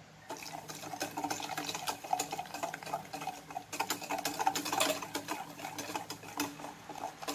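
Wire whisk beating a runny egg, sugar and milk batter in a stainless steel bowl: fast, continuous clicking and scraping of the wires against the metal. It starts about a third of a second in.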